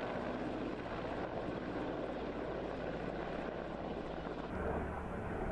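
Mi-8-type military transport helicopter flying close overhead: a steady rush of rotor and turbine noise with a low steady hum. The sound changes abruptly about four and a half seconds in, at an edit to another helicopter recording.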